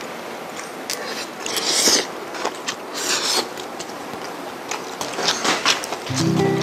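A man eating close to the microphone: a few short slurps and chewing sounds with small clicks of chopsticks. Soft background music comes in near the end.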